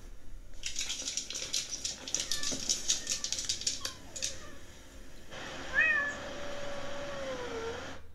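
A cat meowing about six seconds in: a short rising call that trails into a long, slowly falling note. Before it come soft clicking and rustling.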